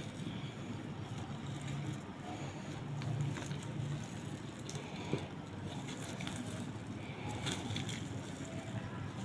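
Wet squelching and faint dripping as grated onion pulp is squeezed by hand in a latex glove, wringing the juice into a china bowl, with a few small clicks. A steady low hum runs underneath.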